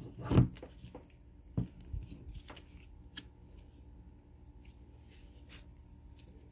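Hands struggling with the snap-on plastic lid of a slime tub: a scrape about half a second in, then a few sharp plastic clicks over the next couple of seconds, then only faint handling ticks.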